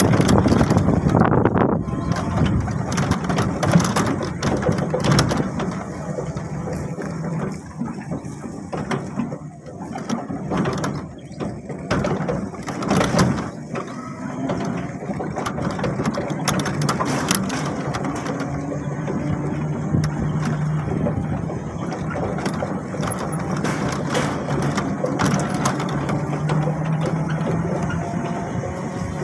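A small vehicle rattling and clattering as it rides over a rough, rutted dirt road, with a low steady hum in the second half.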